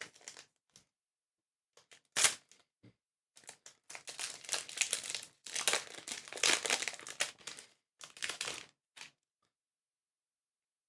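A trading-card booster pack wrapper being torn open and crinkled: one sharp rip about two seconds in, then a long stretch of crinkling plastic foil handling.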